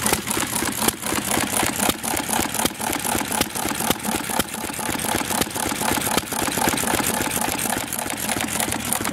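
Small stationary engine running steadily, with a rapid, even ticking beat.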